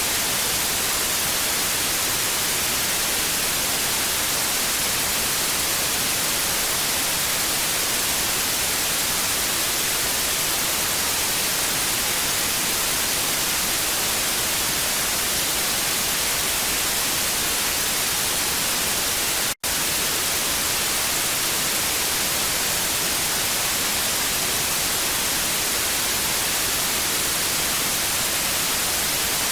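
TV static sound effect: a steady, even hiss, brightest in its upper range, broken once by a split-second dropout about twenty seconds in.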